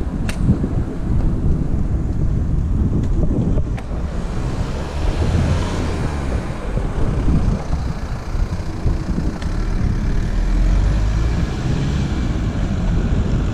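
Wind buffeting the microphone of a handlebar-mounted GoPro on a moving bicycle: a loud, unsteady low rumble, with a sharp click near the start and another about four seconds in.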